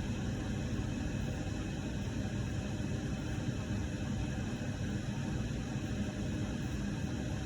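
Steady low hum with a hiss underneath, even throughout, with no distinct clicks or events.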